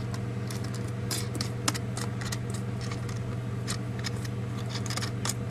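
Scattered light clicks and clinks of metal mess-kit pieces being handled, over a steady low hum.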